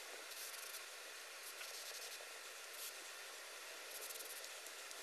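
Faint, short hisses of an aerosol carburettor cleaner sprayed into the passages of a lawnmower carburettor body, a few brief spurts over a steady low hiss.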